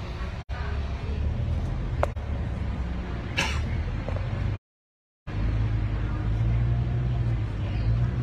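Steady low engine and road rumble heard from inside a moving double-decker bus, with a brief hiss about three and a half seconds in. The sound cuts out completely for under a second a little past halfway.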